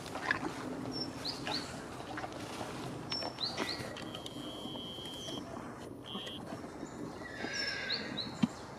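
Wild birds chirping in woodland: short high calls in small groups a few times, with a few longer held whistled notes, over a background of soft rustles and clicks.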